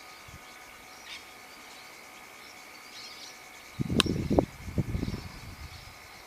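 A large kangaroo sneezing: a sudden loud burst about four seconds in, a sharp crack followed by two quick blasts. Insects chirr steadily in the background.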